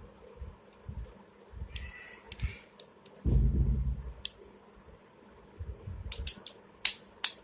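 Clicks and taps of small tools on the plastic parts of a Samsung flip phone while its screws are taken out. A duller handling knock comes about three seconds in, and a few sharp clicks come near the end.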